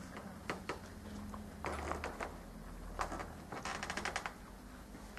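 Scattered light clicks and scratches of writing and handling in a small classroom, with a quick run of ticks about three and a half seconds in, over a steady low hum.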